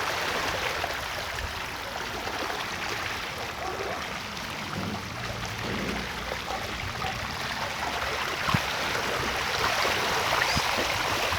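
Steady rushing of flowing floodwater, an even hiss of moving water with a few faint clicks.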